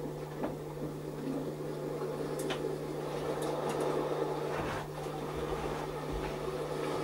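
Steady low hum and room noise, with a few faint clicks and knocks.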